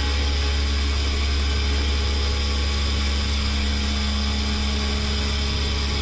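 Gang-type CNC turn-mill machine running while it cuts: a steady low hum with a constant high whine over it.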